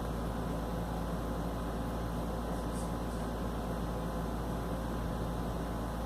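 Steady low background hum with an even hiss, and no distinct sounds standing out.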